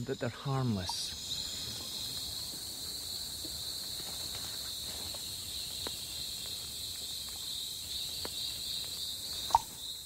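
Rainforest insects droning steadily at a high pitch, with a few faint scattered clicks and one sharper click near the end.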